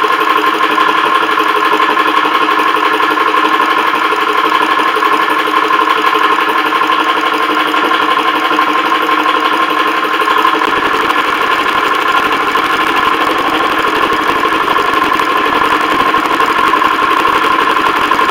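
Vevor 4500 high-pressure PCP air compressor running steadily while filling an air rifle's air cylinder toward 3,000 psi: a loud, even machine hum with a strong steady tone. About ten seconds in, the sound turns rougher and fuller at the low end.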